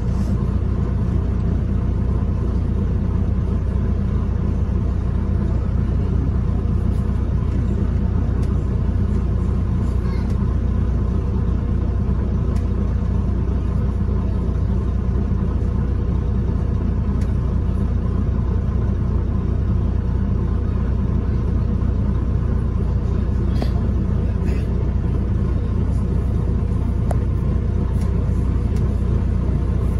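A double-decker bus in motion, heard from inside the passenger cabin: the steady low rumble of its engine and road noise, with a couple of faint clicks or rattles about two-thirds of the way through.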